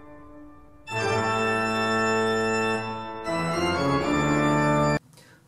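Organ music in sustained held chords: a chord dying away, a loud new chord about a second in, the harmony shifting around three seconds in, then the music cutting off suddenly near the end.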